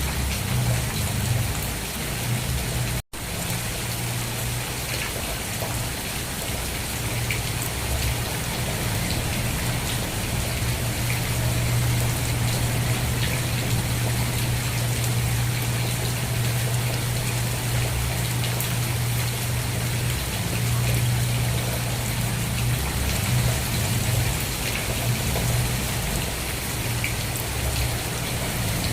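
Steady rain falling, an even hiss of many drops with a steady low hum underneath. About three seconds in the sound cuts out for a split second, a splice in the recording, then resumes unchanged.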